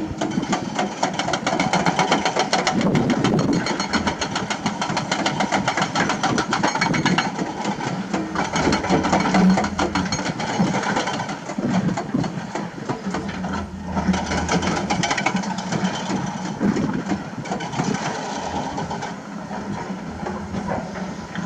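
Heavy construction machinery's diesel engines running with a fast, even clatter, swelling and easing in level as the machines work.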